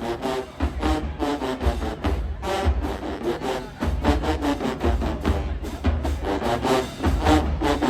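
HBCU marching band playing: a drumline beating out many quick strokes, with short brass phrases and heavy low bass drum hits.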